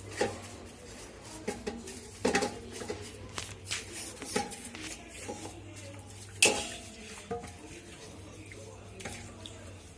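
Metal compressor parts and hand tools clinking and knocking irregularly during teardown or reassembly, some knocks ringing briefly; the loudest knock comes about six and a half seconds in. A steady low hum runs underneath.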